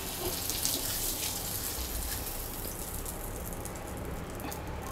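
Butter sizzling and crackling in a hot pan under a fried chapati sandwich, an even hiss that thins out after about three seconds.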